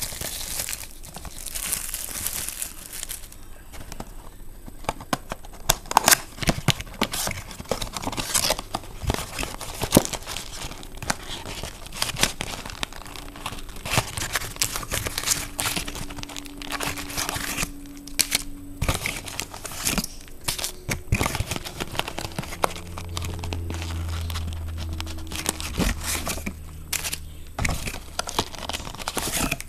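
Plastic wrapping and trading-card pack wrappers crinkling and tearing as a Donruss basketball blaster box and its packs are opened, a dense irregular run of crackles and sharp snaps.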